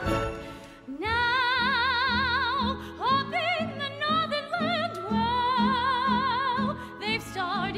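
Orchestra playing a 1920s-style jazz number with a steady pulsing beat, led by a melody of long held notes with wide vibrato that scoop up into each phrase.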